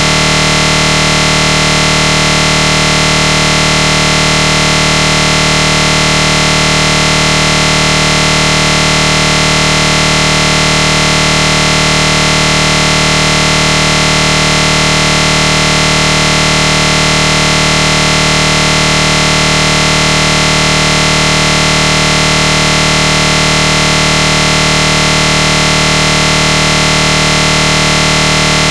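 A loud, unchanging electronic buzz made of many steady tones, with no rise, fall or break: an audio artifact rather than any engine or voice.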